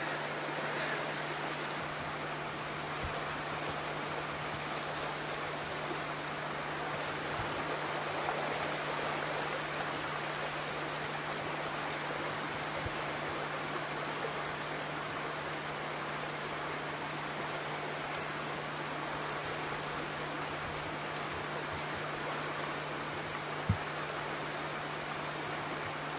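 Steady rushing of a creek, with a constant low hum underneath and one sharp tick a few seconds before the end.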